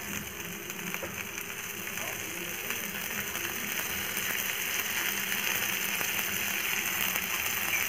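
Masala-coated fish frying in oil in a nonstick pan: a steady sizzle that slowly grows louder as a ladle of oil is poured over the fish.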